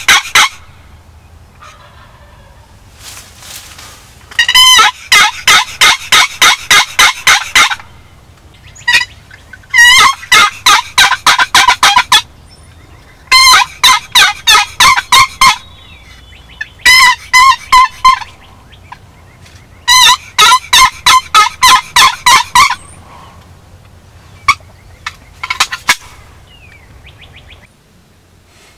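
Wild turkey calling in loud runs of rapid, evenly spaced notes, about seven runs with short pauses between them.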